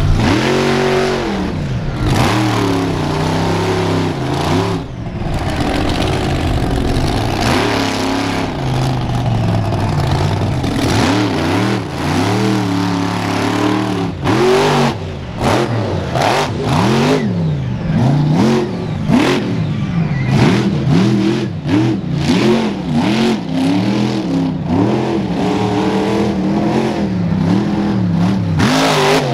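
Avenger monster truck's engine revving hard over and over, its pitch swinging up and down as the truck drives and wheelies through the dirt. From about halfway through, knocks and clatter from the truck come in between the revs.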